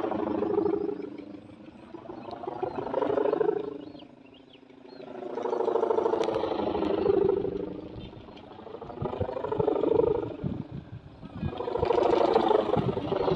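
A kite's sendaren, a 4.5-metre hummer bow, droning in the wind with a deep, wavering hum. The hum swells and fades four times as the wind gusts across the bow.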